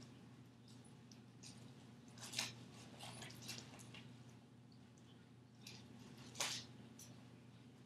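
Faint rustling, crinkling and chewing noises from a dog getting into food, with two louder rustles about two and a half and six and a half seconds in, over a steady low hum.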